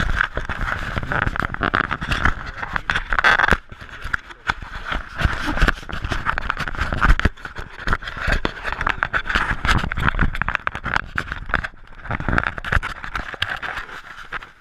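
Handling noise from an action camera being gripped and repositioned: fingers rubbing and scraping on the housing, with irregular knocks and clicks throughout.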